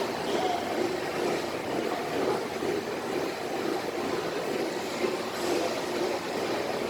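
Workshop machinery running steadily, a continuous mechanical rumble without a clear beat.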